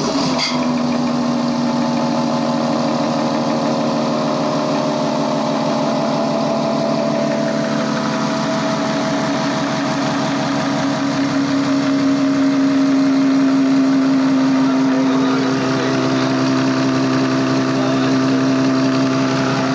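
Toyota 1HD-FTE 4.2-litre straight-six, 24-valve intercooled turbo diesel idling steadily.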